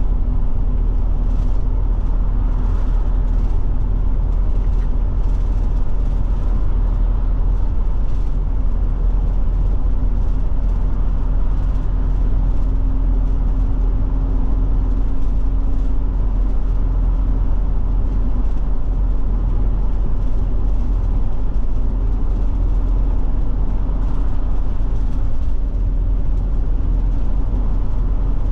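Forest River Forester Class C motorhome driving steadily at road speed: constant engine and road noise, a deep rumble with a faint steady hum over it.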